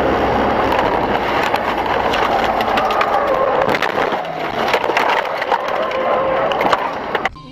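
Loud, steady rush of road and wind noise from a moving car's dashcam, full of crackles and sharp clicks, cutting off suddenly near the end.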